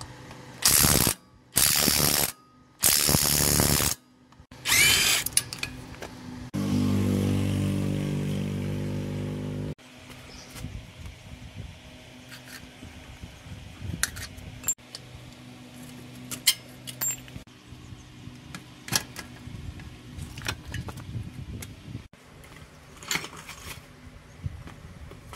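Workshop power tool run in three or four short, loud bursts, then a motor running steadily for about three seconds before it cuts off. After that, scattered clicks and knocks of tools on metal.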